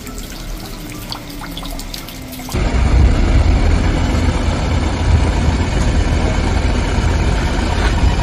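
Water sounds of floodwater. A quieter stretch gives way, about two and a half seconds in, to a louder steady rushing with a strong low rumble.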